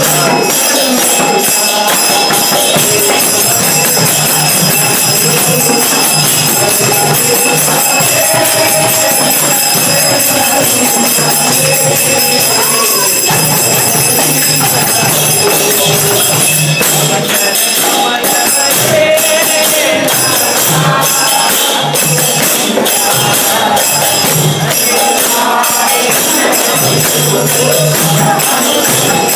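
Devotional kirtan music: a tambourine jingling continuously over steady group hand-clapping, with voices chanting along.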